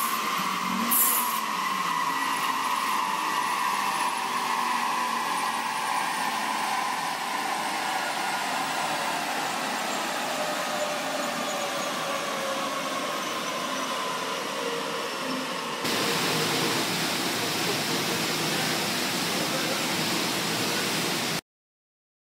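Turbocharged Mercedes 190 running on a chassis dyno with a whine that falls slowly in pitch for about sixteen seconds, after two short hisses at the start. A louder, even rushing noise then starts abruptly and cuts off a few seconds later.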